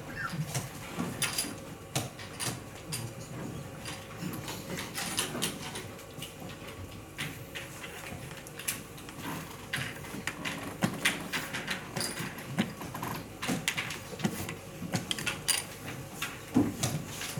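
Tournament hall with many short, sharp, irregular clicks and taps of draughts pieces being set down and game clocks being pressed at several tables, over a low murmur of room noise.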